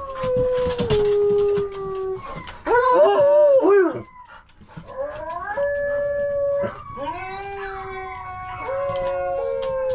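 Dogs howling in long, drawn-out notes that bend in pitch, two voices overlapping at times, with a short break about four seconds in.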